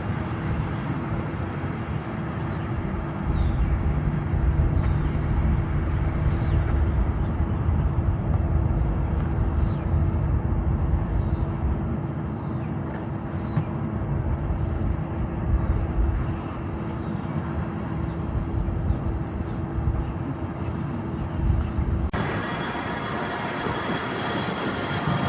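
Steady rumbling vehicle noise with a constant hum, changing abruptly about 22 seconds in.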